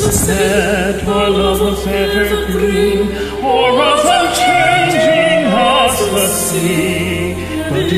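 A man and a woman singing a karaoke duet over a backing track, their voices wavering with vibrato. A higher voice comes in about three and a half seconds in.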